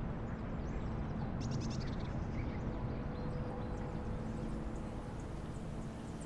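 Faint outdoor ambience: a low, even rumble of air with a few faint high chirps about a second and a half in. Soft sustained music notes fade in over the second half.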